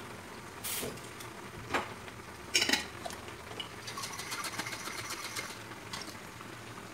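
Water being shaken in a plastic sauce bottle to rinse out the last of the carbonara sauce: a few short splashes and knocks, then a rapid sloshing rattle for a second or so about four seconds in.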